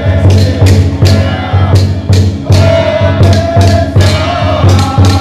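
Drum-and-cymbal percussion music struck on a steady beat of about two strikes a second, with a held higher tone coming in about halfway through; percussion of the kind that accompanies a possessed spirit medium's dance.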